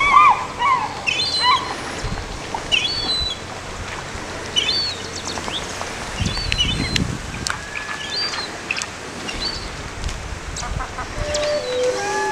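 Bald eagles calling: scattered short, high chirping notes, loudest at the start and sparser after, over a steady background hiss.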